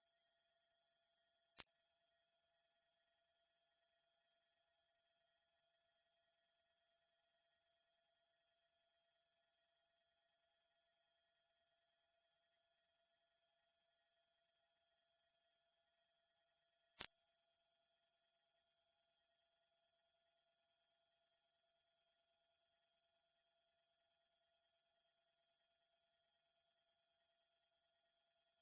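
Dog whistle sound effect: one steady, very high-pitched pure tone, loud and unwavering. There are two faint clicks, one about a second and a half in and another a little past the middle.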